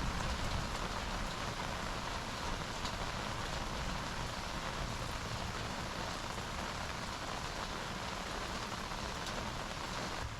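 Steady rain falling, heard from underneath an umbrella.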